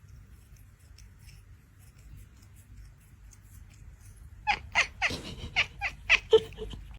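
A cat meowing in a quick run of short, repeated calls, beginning about four and a half seconds in after a faint low rumble.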